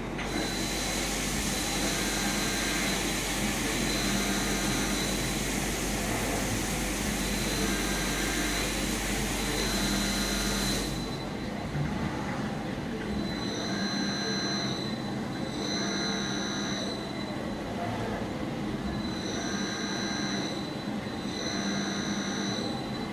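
CNC vertical milling machine tapping threaded holes: the spindle whines in short, repeated bursts, paired in the second half, as the tap is driven into each hole and reversed back out. Underneath is a steady rush that drops away about eleven seconds in.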